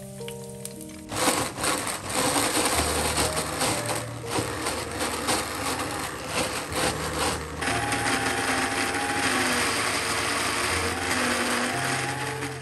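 Small electric blender running, grinding fried chillies, shallots, garlic, tomato and shrimp paste into sambal terasi. It starts about a second in after a moment of frying-oil sizzle, grows denser about halfway through, and stops right at the end.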